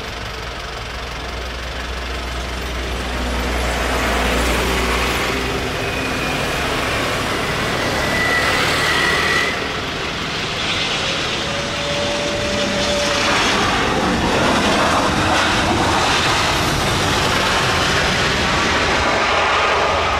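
Airbus A320-216 airliner's jet engines on landing: a steady jet rush with a gliding whine that grows louder as the plane comes in and touches down. It dips briefly, then grows loud again as the plane rolls out along the runway.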